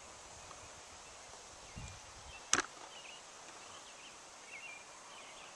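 A single sharp click of a putter striking a golf ball, about two and a half seconds in, over a faint outdoor background.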